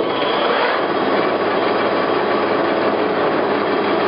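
Select 18-by-80 gap bed engine lathe running steadily, just switched on, with a dense mechanical hum and a few faint steady whining tones from its drive.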